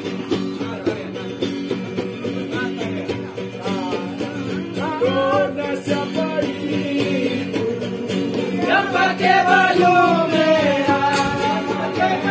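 Several acoustic guitars strummed together in a steady rhythm. Singing comes in about four seconds in and gets louder past the halfway point.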